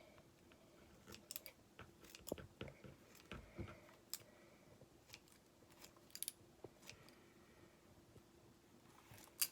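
Scissors snipping through a foam squishy toy: faint, scattered clicks of the blades, with a sharper click near the end, over a faint steady hum.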